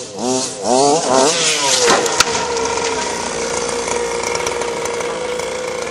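Small two-stroke petrol engine of a large-scale FG RC truck, revved in quick blips about twice a second, then falling away and holding a steady high note at constant throttle. A sharp click sounds about two seconds in.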